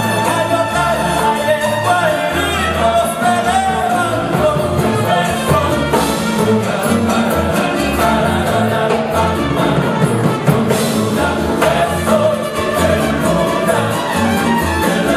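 Live folk ensemble of guitars and lutes playing a ballad, strummed and plucked together, with a male choir singing along.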